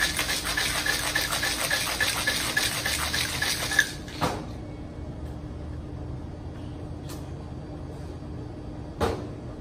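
Ice rattling hard inside a metal cocktail shaker being shaken for about four seconds, stopping abruptly. A single knock follows near the end.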